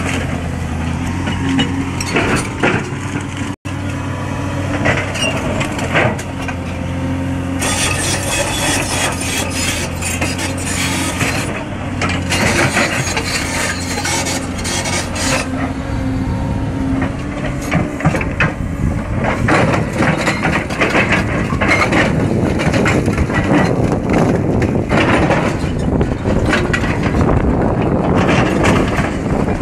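Caterpillar 336D hydraulic excavator's six-cylinder diesel engine running with a steady drone. From about eight seconds in, a dense rattling clatter of knocks joins it and grows heavier in the second half.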